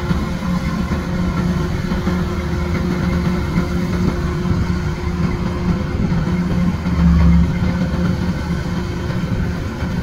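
Kubota DC-105X combine harvester's diesel engine and machinery running steadily as it cuts rice, with a brief louder surge about seven seconds in.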